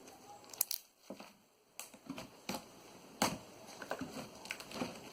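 Slime being kneaded and squeezed by hand, making irregular sticky pops and crackles.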